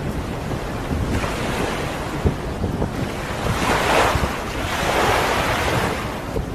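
Choppy open sea sloshing and splashing, with a louder rush of water from about three and a half to six seconds in, and wind rumbling on the microphone.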